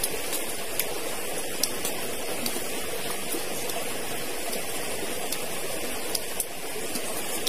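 Steady rushing of a stream's flowing water, with a few faint ticks scattered through it.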